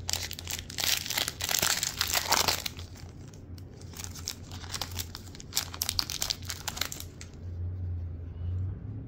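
Foil trading-card pack wrapper being torn open and crinkled in the hands. The crackling is loudest in the first three seconds, then turns to lighter, scattered rustling that dies away about seven seconds in.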